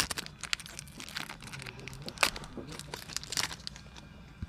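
Foil booster-pack wrapper crinkling as the opened pack is handled and the Pokémon cards are drawn out, in a few short crackles about a second apart.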